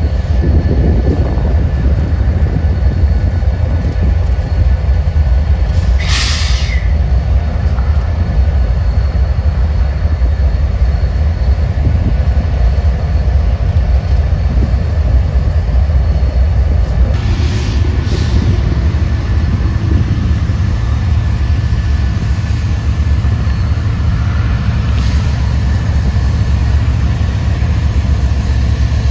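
Train running with a steady, heavy low rumble, broken by a brief hiss about six seconds in and two shorter hisses around seventeen seconds in.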